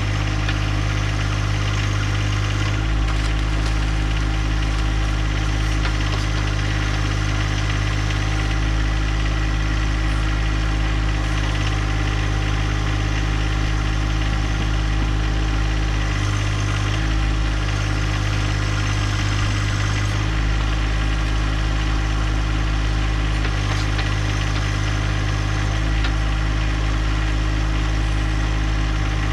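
John Deere 1025R compact tractor's three-cylinder diesel engine running steadily. Its low hum shifts slightly now and then, around 3, 16, 20 and 24 seconds in.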